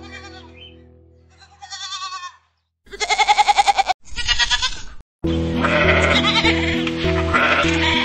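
Goats bleating: several separate quavering bleats, the loudest about three seconds in, with background music fading out at the start and coming back about five seconds in under further bleats.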